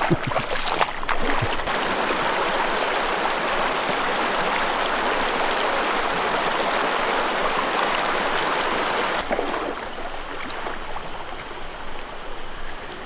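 Steady rush of a flowing river, with a few knocks and splashes in the first second or so and quieter after about nine seconds. A faint high chirp repeats about once a second over the middle.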